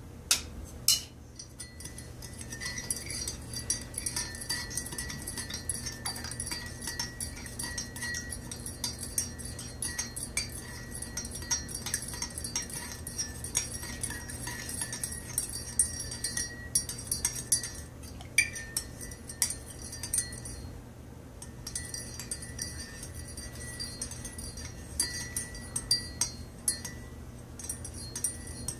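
Metal spoon stirring sugar into coffee in a ceramic mug, clinking rapidly and steadily against the inside of the mug with a light ringing. It starts with two sharp clinks and has a few brief pauses.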